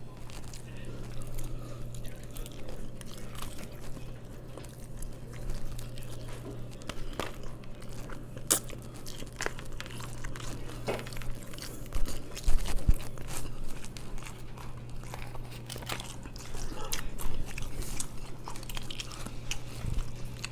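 A person chewing and biting food, with many small scattered clicks and taps and one louder knock about twelve seconds in. The food is a meal of mussels and garlic smoked chicken on rice.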